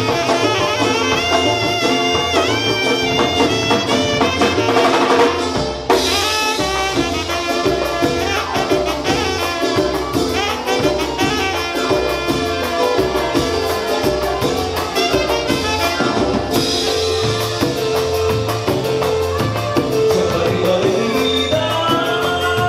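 Latin dance band music: saxophone and trumpet playing the melody over congas, drum kit and bass, with a steady beat. The music dips briefly about six seconds in.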